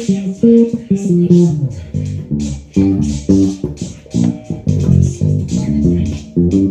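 Electric bass guitar playing a run of plucked notes in a steady groove, with a regular beat of short hissy ticks above it.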